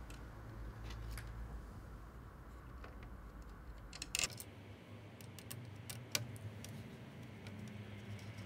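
Scattered light clicks and taps of a small screwdriver turning the two screws that fix a 40mm motherboard fan in place, with a brief louder clatter about four seconds in.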